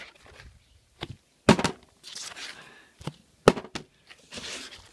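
Plastic water bottle tossed in bottle flips and landing on a hard tabletop: two sharp knocks about two seconds apart, each with a lighter tap close by, and soft rustling in between.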